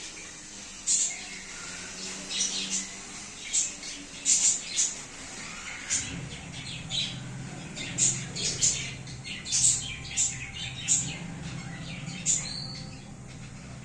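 Budgerigars chirping and squawking: many short, sharp, high calls coming in irregular quick succession.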